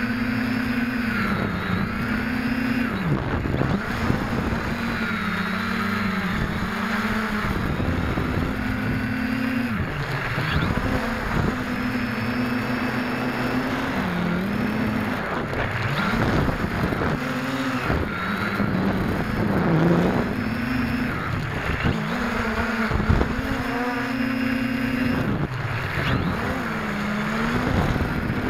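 SK450KK2 quadcopter's four electric motors and propellers buzzing, heard up close from the onboard camera in flight. The pitch dips and rises again every few seconds as the throttle changes.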